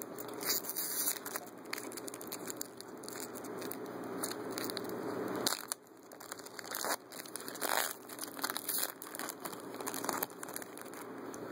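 A trading card pack's wrapper being torn open and crinkled by hand, a run of irregular crackles and rustles.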